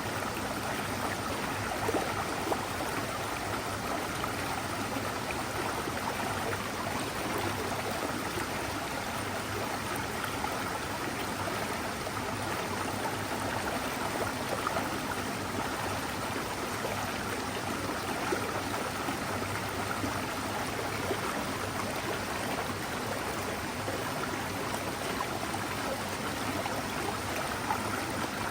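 Mountain stream flowing over rocks: a steady, even babble and rush of water.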